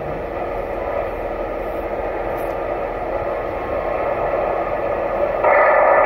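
CB radio receiver hissing with static between transmissions. About five and a half seconds in, a stronger signal comes in and the hiss gets louder.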